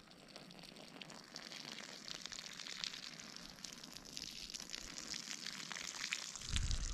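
A man urinating onto dry grass and brush: a spattering, hissing stream that grows steadily louder. A low rumble on the microphone comes near the end.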